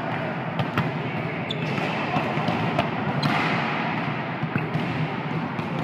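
Volleyballs being struck and bouncing on a gymnasium court during a team warm-up: a handful of separate sharp slaps and thuds, echoing in the hall, over a steady background din.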